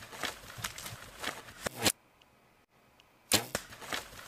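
A black bear hit by an arrow thrashing and crashing about in dry sticks and leaf litter: a run of sharp cracks, snaps and rustles, quieter for about a second past the middle, then loud again.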